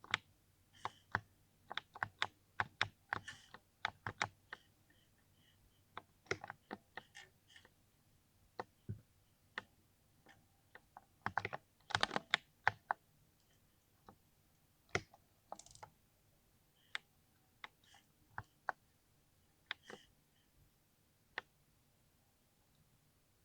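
Typing on a mechanical keyboard with soft, creamy-sounding keys: irregular bursts of keystrokes, with a fast flurry about a third of the way in and scattered single presses after it.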